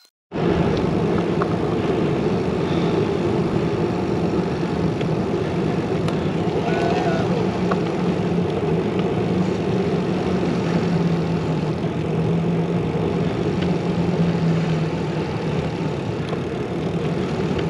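Steady loud rushing and rumbling of wind on the microphone while riding a bicycle towing a caravan trailer. It starts abruptly and holds even throughout, with a low hum underneath.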